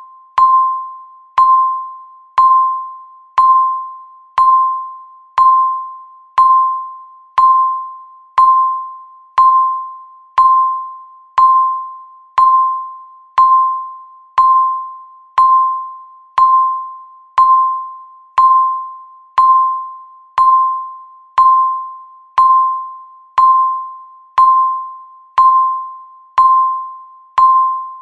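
Countdown timer sound effect ticking off the seconds: a single bell-like chime struck once a second, each ringing out and fading before the next.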